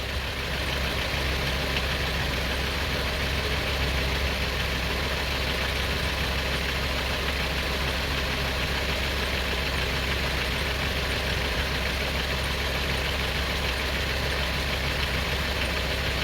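2002 Honda CR-V's 2.4-litre four-cylinder engine idling steadily, heard from the open engine bay.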